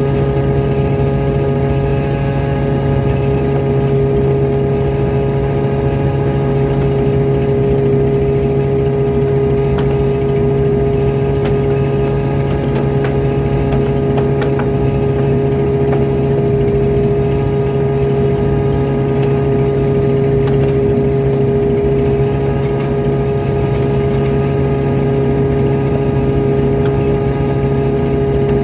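Fishing boat's engine running steadily at constant speed, a loud unbroken drone with a low hum.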